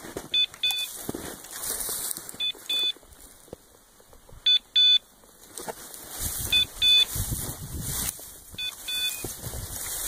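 A bird dog's electronic beeper collar giving five double beeps, about one pair every two seconds, a fast rhythm typical of a locator collar signalling that the dog is standing on point. Between the beeps, wind and brushing through dry grass.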